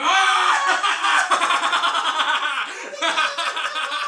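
A man laughing loudly in rapid ha-ha pulses, starting abruptly and breaking off for a moment just before three seconds in. It is a mock-evil laugh meant to frighten a child.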